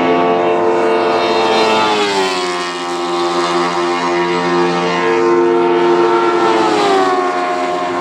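Motorcycle-engined single-seater race cars running at high revs, a dense high-pitched engine note. The pitch falls sharply about two seconds in and again near seven seconds.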